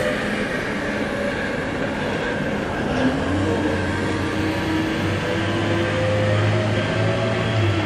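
Steady machinery rumble of the cruise ship AIDAblu during port manoeuvring, with a low hum that sets in about three seconds in and holds.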